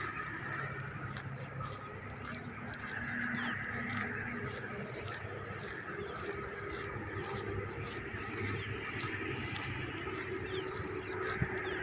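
Outdoor morning ambience: a steady background chorus of bird calls, with some lower honking calls and faint regular clicks.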